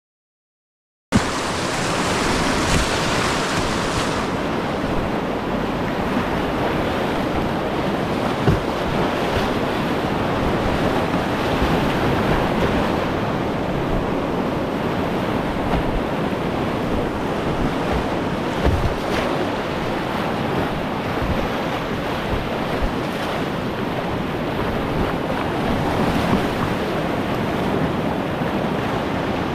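Whitewater river rapids rushing, a steady loud roar of moving water that starts after about a second of silence, with a few brief knocks.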